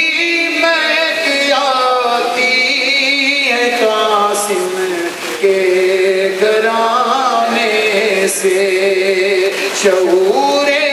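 A man singing a devotional poem solo into a microphone, in long melodic phrases that bend and glide in pitch.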